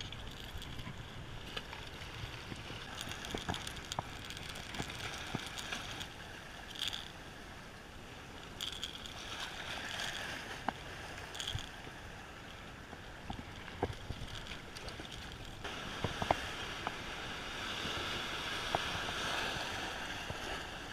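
Waves washing and breaking against jetty rocks, with wind on the microphone. Small clicks and taps of fishing tackle are scattered over it as a hooked fish and its plug are handled. The surf grows louder over the last few seconds.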